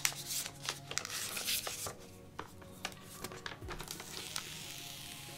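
Protective plastic cover being peeled off a new Google Pixel 3 phone: a run of soft crackles and rustles, busiest in the first two seconds and thinning out after.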